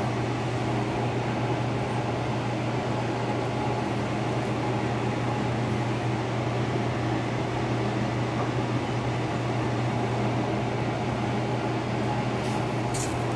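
Steady drone of a commercial kitchen's ventilation: an even fan hiss with a low hum underneath, unchanging throughout.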